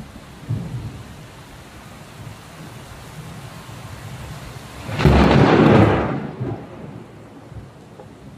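Steady rain with a loud clap of thunder about five seconds in, fading away over the next second or two.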